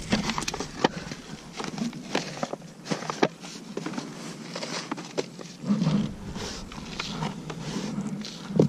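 Irregular crunching and rustling: footsteps on dry pine needles and leaves, then a tarp pulled back from a bin and compost scooped by hand into a small pot.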